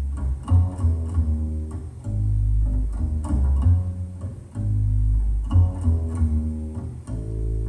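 Music played back through KEF LS50 Meta bookshelf speakers and picked up by a phone's microphone: deep, held bass notes under a line of plucked string notes.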